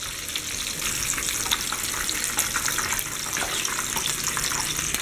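Ground-beef patties frying in hot oil in a pan: steady sizzling and bubbling with fine crackles. The patties are browned and done.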